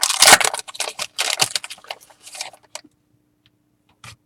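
Foil wrapper of a trading card pack being torn open and crinkled, a dense run of rustles lasting about three seconds, then a single short click near the end.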